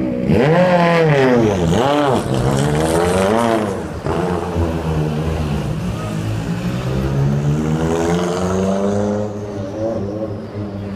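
Ford Fiesta RS WRC rally car's turbocharged 1.6-litre four-cylinder engine pulling away hard, its revs rising and falling several times, then holding a steadier climbing note that fades as the car moves off.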